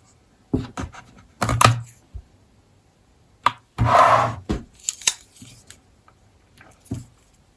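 Handling noises from a folding pocket knife: scattered short clicks and knocks, with a brief louder rub about four seconds in.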